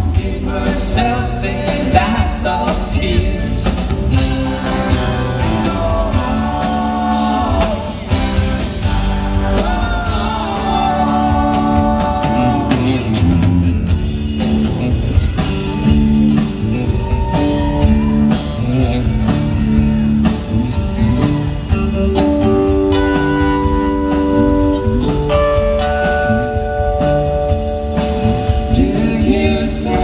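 Live rock band playing electric guitars, bass and drum kit, with singing.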